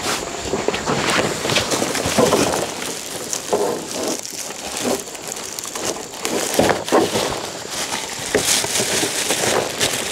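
Rustling and crunching handling noise, with many scattered clicks and a few brief voice-like sounds.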